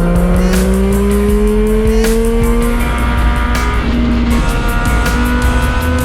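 Motorcycle engine accelerating, its pitch climbing steadily for about three seconds and then holding level, mixed with background music that has a steady beat.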